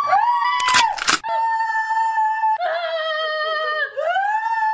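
Long, high howls, about four in a row, each sliding up at the start and then held on one pitch for a second or so before dropping away.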